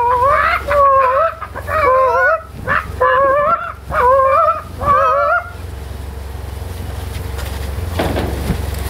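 High-pitched, wavering tune in short phrases of about half a second each for the first five seconds or so. After that only a steady low hum and hiss remain.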